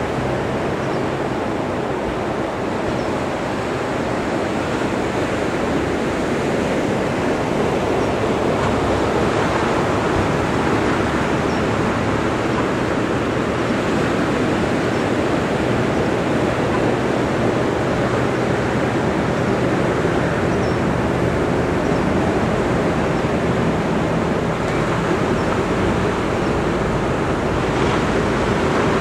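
Ocean surf breaking and washing up a sandy beach: a steady rushing with no pauses.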